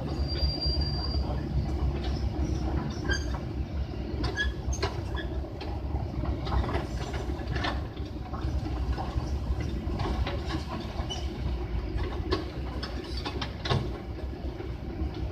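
Heavy diesel machinery rumbling steadily, with scattered metallic knocks, clanks and short high squeaks.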